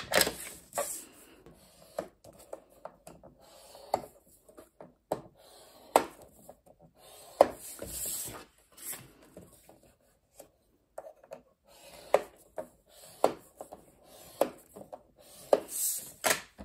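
Paper strips being scored on a plastic scoring board: short scratchy strokes of the scoring tool along the grooves, with scattered taps and clicks as the paper and tool are moved and set down.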